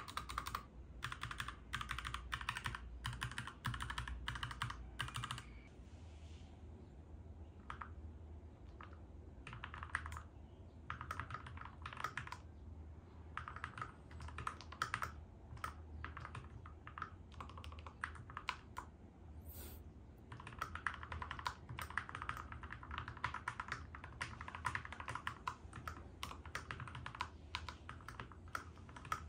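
Typing on a Keychron K2V2 mechanical keyboard fitted with lubed Gateron G Pro Red linear switches and foam-dampened in the case. It opens with fast runs of keystrokes, slows to scattered single key presses for a while, then picks up fast typing again about two-thirds of the way in, over a steady low hum.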